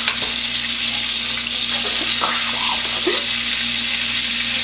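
Steak frying in butter in a pan, a steady loud sizzle, with a few faint clicks about two to three seconds in.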